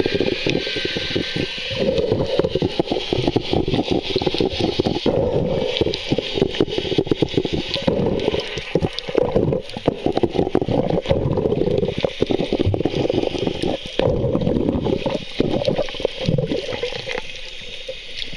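Underwater sound picked up through a camera's waterproof housing: water gurgling and swishing, with many irregular knocks and clicks, as a crowd of fish feeds on bread around the camera. It eases off a little near the end.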